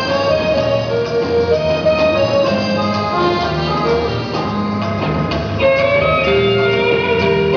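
Instrumental music playing: a melody of held notes over a changing bass line.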